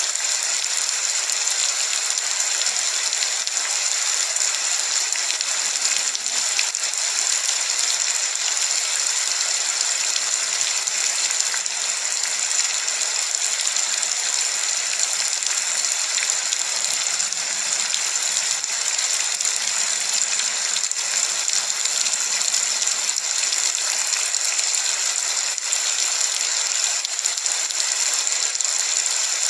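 Rain falling steadily: a dense, even hiss of drops with faint patter throughout.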